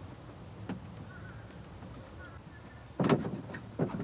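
A loud short clatter about three seconds in, then a fainter knock near the end, as parts of a car door handle are worked loose by hand and with tools. Before that, faint squeaks.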